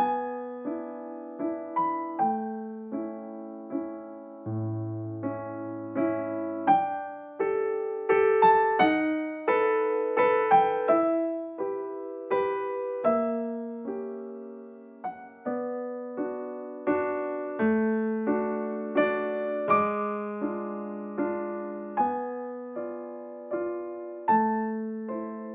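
Solo piano music, slow and gentle, playing single struck notes and chords that ring and fade.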